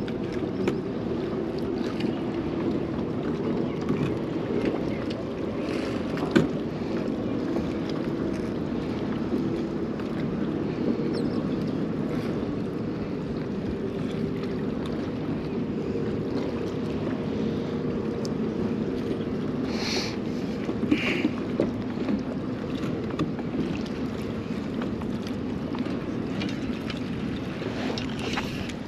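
Steady wind on the microphone and water moving around a sit-on-top kayak, with a few light clicks and knocks about six seconds in and again around twenty seconds in.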